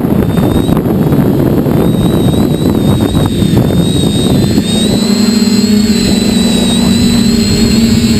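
Small radio-controlled aircraft in flight, heard from on board: wind rushing over the microphone, with the high, wavering whine of its motor. About four and a half seconds in, a steady propeller hum comes up under the wind.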